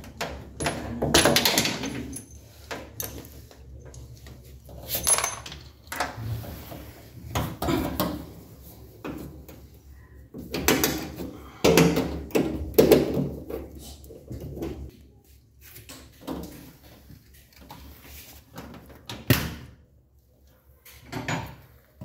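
Irregular metallic clicks, knocks and rattles of the transit bolts being worked loose and pulled from the back of a Midea front-load washing machine. These shipping bolts have to come out before use, or the machine vibrates and runs noisy.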